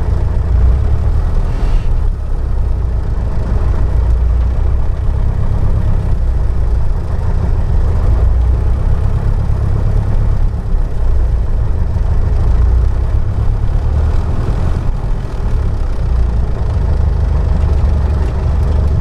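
Piper PA-28-161 Warrior's Lycoming O-320 four-cylinder engine running steadily at low power while taxiing, heard inside the cabin as a steady low rumble.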